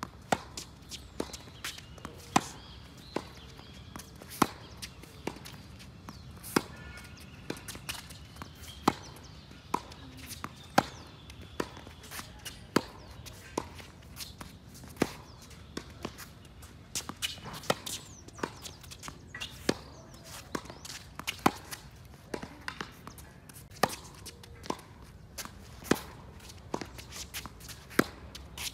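Tennis rally on a hard court: sharp pops of racket strings striking the ball, the loudest about every two seconds, with softer ball bounces and far-end hits in between.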